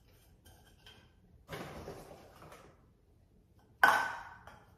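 Cotton swabs rustling as they are handled into a small canister about one and a half seconds in, then near the end a single sharp clink with a short ring as the canister meets the marble countertop.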